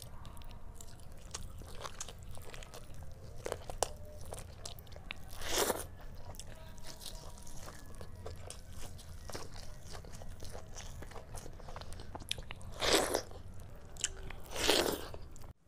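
Close-miked eating: biting and chewing chicken leg curry, fried egg and rice eaten by hand, with many small wet mouth clicks. There are three louder, noisier moments, one about a third of the way in and two near the end.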